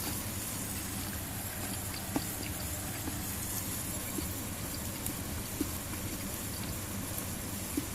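Steady hiss over a low hum, with a few sharp pops about every two seconds, typical of food grilling on a wire net over a small solid-fuel fire.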